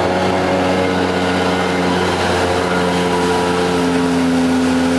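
Tow boat's engine running at a steady pitch under load as it pulls a wakeboarder up out of the water on the rope, over a hiss of water.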